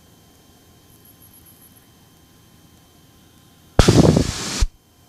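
Cockpit headset audio of a Cessna 172: a faint steady hiss, then about four seconds in a burst of static just under a second long, switched on and off with sharp clicks as the intercom/radio audio channel briefly opens.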